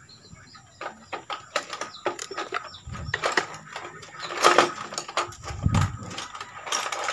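Flat screwdriver prying a heat-softened plastic motorcycle headlight lens away from its housing, giving scattered clicks and scrapes of plastic with a few dull knocks as the lens seam opens up.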